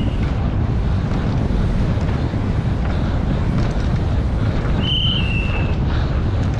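Steady loud wind buffeting on the microphone during a fast mountain-bike descent. A brief high squeal comes about five seconds in.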